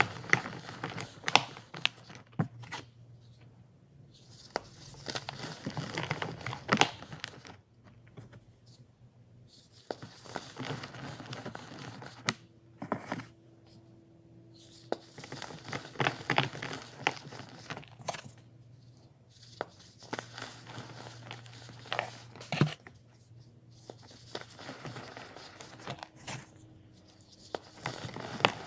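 Pressed baking soda blocks being crushed and crumbled in bare hands. The sound comes in bursts of dry crunching and crackling with sharp cracks, separated by short pauses.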